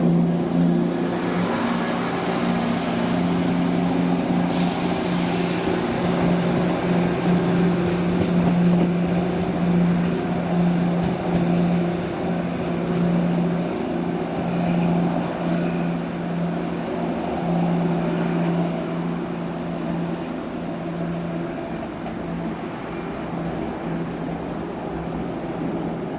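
Diesel passenger train's engine running with a steady drone that slowly fades away.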